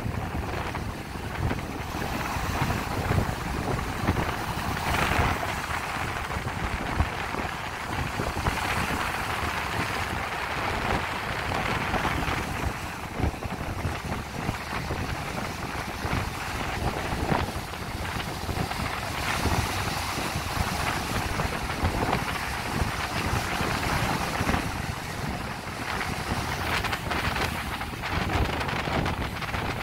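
Sea waves washing in and breaking over rocks at the shoreline in a steady surging rush, with wind gusting on the microphone.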